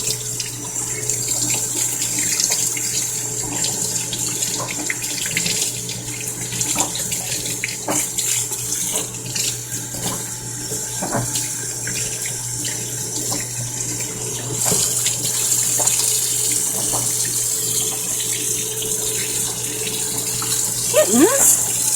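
Water running from a tap into a sink as a kitten is bathed under it, with irregular splashing and a low steady hum beneath. The flow gets louder about fifteen seconds in.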